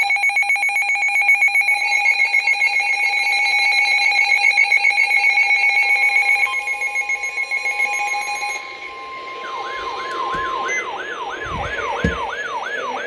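Emergency Alert System attention signal: a steady two-tone alert tone that cuts off about eight seconds in. About a second later a siren starts, sweeping quickly up and down about three times a second, with a couple of low thumps near the end.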